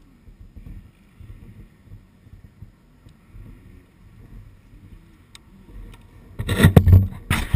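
Low, uneven wind rumble on the camera microphone. About six and a half seconds in, loud rustling and knocking take over for about a second, and it comes again near the end.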